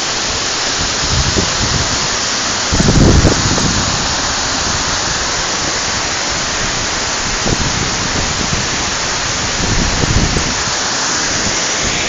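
Waterfall rushing steadily and loudly. A few low bumps hit the microphone, the strongest about three seconds in.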